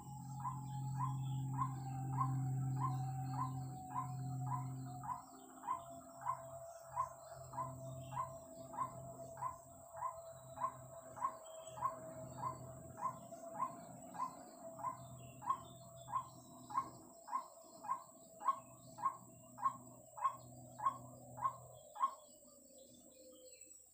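White-breasted waterhen (ruak-ruak) calling: a short note repeated evenly, a little under twice a second, fading near the end. Under it run a low hum and a steady drone that slowly falls in pitch.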